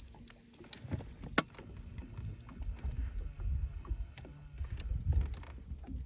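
Water lapping against a fishing boat's hull, an uneven low rumble, with a few sharp clicks and knocks; one click about a second and a half in is the loudest.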